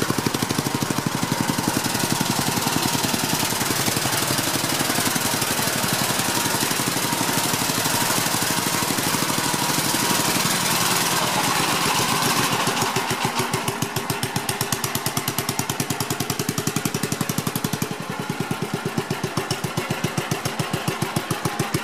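Old Gravely walk-behind tractor's engine running steadily under load, with a sickle bar mower on the front, its firing strokes fast and even. About two-thirds of the way through, the high clatter eases and the engine beat stands out more plainly. The engine runs well.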